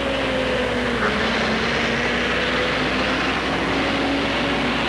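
A vehicle engine running steadily under a constant hiss, with a couple of tones sinking slowly in pitch.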